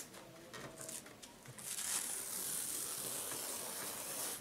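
Masking tape being peeled off fabric: a steady dry tearing rasp lasting about three seconds, starting after a few light clicks of handling and stopping abruptly.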